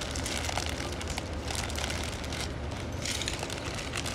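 Grey plastic poly mailer bag crinkling and rustling as it is pulled open and handled, in irregular bursts, over a steady low hum.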